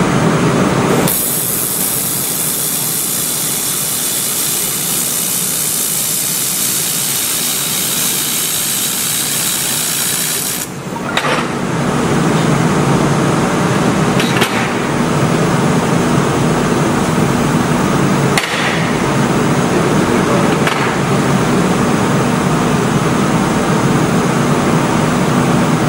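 Handheld fiber laser welding gun firing along a seam in metal plate: a steady high hiss starts about a second in and cuts off abruptly after about ten seconds. Afterwards the welding machine gives a steady hum, with a few short clicks.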